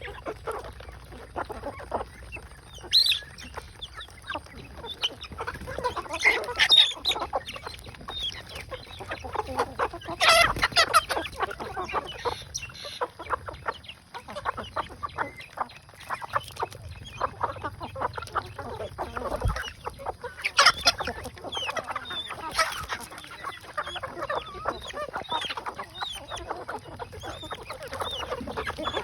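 Chickens clucking while they feed, with many short taps and clicks throughout and a few louder calls.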